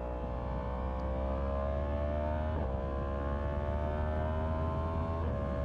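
Yamaha MT-10's crossplane inline-four engine pulling under way, its pitch climbing slowly and steadily, with two brief breaks in the note. A steady low wind rumble on the microphone runs underneath.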